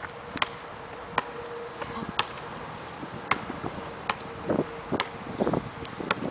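A basketball bounced on an asphalt court as it is dribbled: sharp single slaps, roughly one a second.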